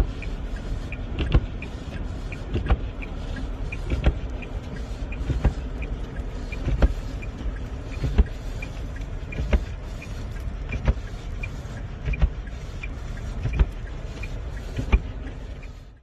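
Car windshield wipers sweeping a snow-covered windshield, a thump at each stroke about every second and a half, over the steady hum of the car's cabin.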